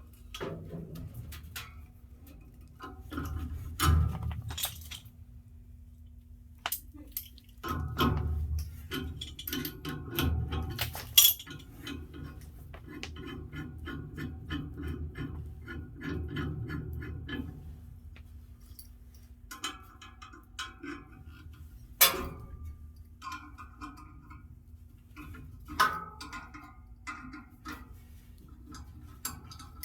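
Metal parts and tools clinking and clanking irregularly, with a few sharper knocks and stretches of low rumbling handling noise, during work on a furnace blower fan motor. A steady low hum runs underneath.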